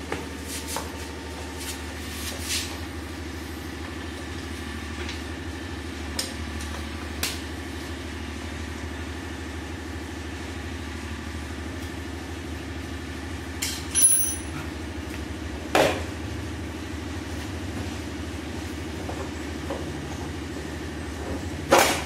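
Screwdriver and hands working the plastic side panel of a Bajaj Pulsar NS200: scattered sharp clicks and knocks, the loudest a little past halfway and near the end as the panel is pulled free, over a steady low hum.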